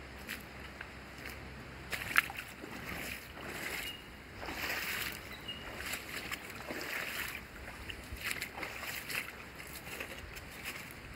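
Muddy creek running high after two days of rain, the water rushing and sloshing over rocks and snagged branches in uneven swells, with a few short sharp clicks.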